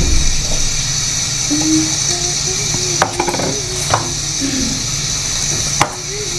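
Steady kitchen hiss with a low hum underneath, broken by a few light clinks of steel bowls and utensils, three of them sharp, about three, four and six seconds in.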